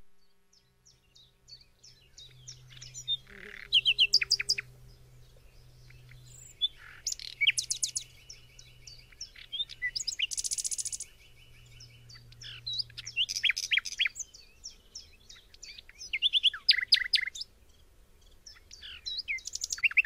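Common nightingale singing: phrases of rapid repeated notes and trills in bursts with short pauses between, with one long fast trill on a single pitch in the middle.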